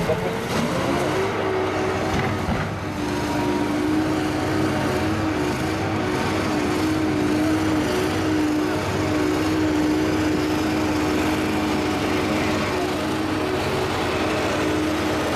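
Vehicle engine running steadily. Its pitch rises about a second in, then holds level at a constant speed.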